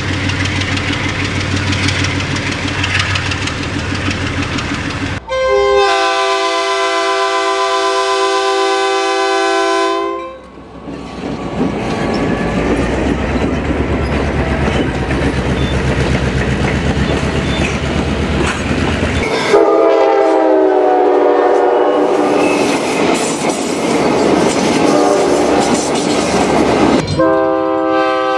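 Recorded sound of a real diesel freight train: the locomotive's engine rumbling, then its multi-note air horn sounded for about five seconds, the train rumbling past, and two more horn blasts, the last starting near the end.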